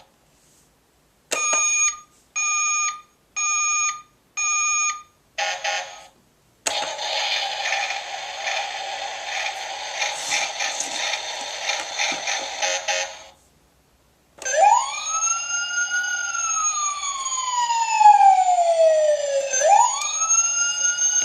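Fisher-Price toy fire engine's electronic sound effects through its small speaker: four short beeps, then several seconds of a noisy buzzing effect, then a wailing siren that climbs quickly, sinks slowly and climbs again.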